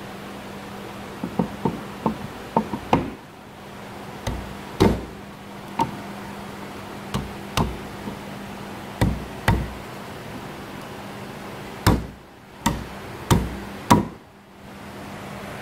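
A series of sharp wooden knocks, about fifteen at uneven intervals, as pieces of the breadboard tabletop are tapped together onto glued Domino tenons. A steady low hum runs underneath.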